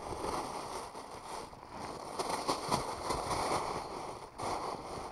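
Close crackling rustle of handling noise from the angler's hands and gear, with a short dip about four seconds in.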